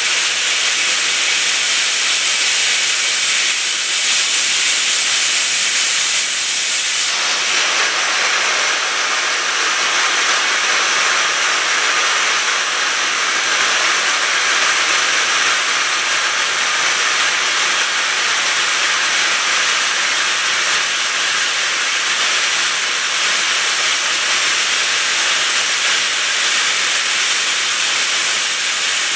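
Steady hiss of a machining centre as a NACHI starting drill, spinning at 2000 rpm, cuts V-grooves into a metal block. About seven seconds in, the hiss fills out lower and fuller and then holds steady.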